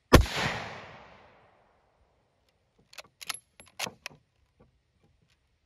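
A single shot from a sporterized Lee-Enfield No. 1 Mk III rifle in .303 British: one sharp crack with an echo dying away over about a second. About three seconds in comes a quick run of metallic clicks as the bolt is cycled.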